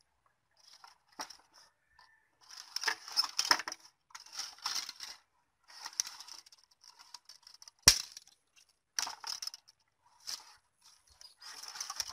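Dry twigs and plant stems rustling and crackling in irregular bursts as they are handled and pulled, with one sharp snap about eight seconds in.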